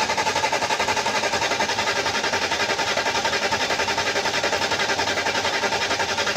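Mercedes-Benz S500's V8 turned over by the starter motor, an even rhythmic cranking at about five to six beats a second that does not catch, stopping near the end. Crank-but-no-start, a fault traced to the fuel pump losing pressure.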